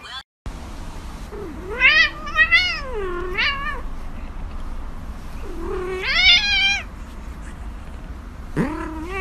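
A grey cat meowing: a long meow with wavering pitch about two seconds in, another about six seconds in, and a third starting near the end, over a steady low hum.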